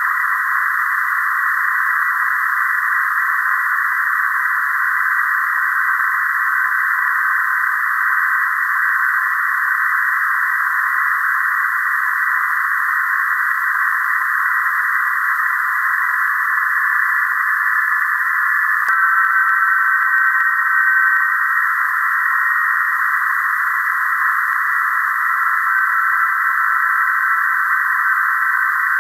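Shortwave receiver audio from SDR radios tuned to the 14.070 MHz PSK31 calling frequency: steady hiss in a narrow band, with faint PSK31 data signals heard as thin warbling tones inside it. More of the signals come in about two-thirds of the way in, along with a single click.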